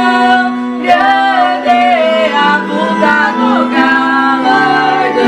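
A woman singing a slow Portuguese hymn, holding long notes that change about once a second, accompanied by a digital piano.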